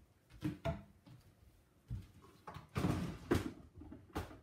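A few short knocks and rustles of small objects being handled and set down on a worktable, the busiest stretch about three seconds in.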